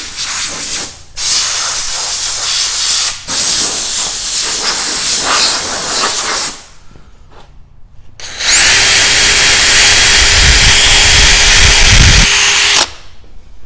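Cordless drill spinning a 500-grit sanding disc against a plastic headlight lens. In the first half there are two long stretches of harsh hissing scrubbing. After a short pause the drill whirs up to a steady high whine for about four seconds, then stops.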